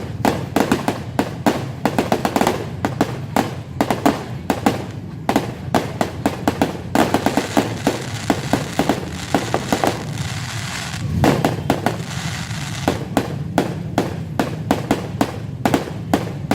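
A fireworks barrage: rapid sharp bangs and cracks, several a second, easing into a hissing crackle for a few seconds in the middle before the bangs pick up again.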